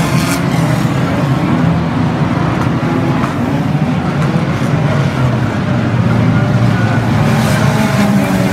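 Engines of a pack of banger racing cars running hard around an oval, a loud, steady mix of engine notes, with a few sharp knocks near the start and again near the end.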